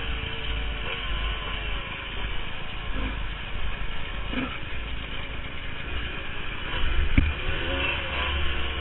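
Honda CR250 two-stroke dirt bike engine running on a rocky downhill trail, its note rising and falling with the throttle. Wind buffets the bike-mounted camera's microphone, and a sharp knock comes about seven seconds in.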